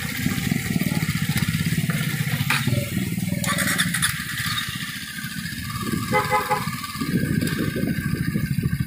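Motorcycle engine running with a fast, even pulse. It drops back about five seconds in and picks up strongly again about seven seconds in.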